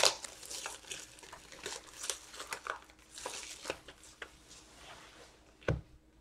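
Trading card packs and a card box being handled on a table: wrappers crinkling and rustling with small clicks, and one dull thump near the end.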